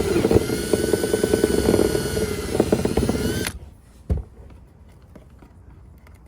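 Power drill with a step bit cutting through the plastic kayak hull, a fast even chatter over the motor's whine, stopping abruptly about three and a half seconds in. A single knock follows.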